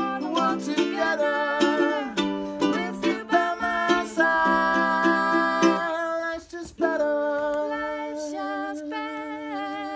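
Ukulele strummed in chords with voices singing along. The music breaks off briefly just past halfway, then picks up again.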